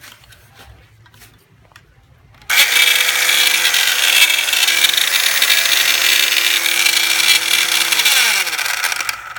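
Ozito 18V cordless circular saw with no blade fitted, switched on about two and a half seconds in after a few light handling clicks; its motor runs loud and steady, then spins down with falling pitch near the end. It runs a bit noisy, which the owner thinks may be a worn bearing.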